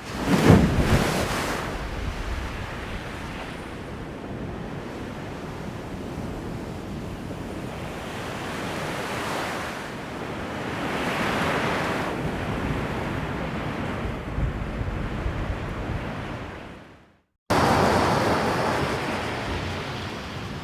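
AI-generated sound effect of ocean surf: washes of noise that swell and fall, opening with a loud surge. It cuts off abruptly about 17 seconds in, and after a brief silence a second take starts with a sudden loud wash that fades.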